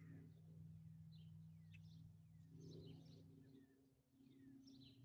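Near silence, with faint birds chirping: short, repeated downward-sweeping chirps.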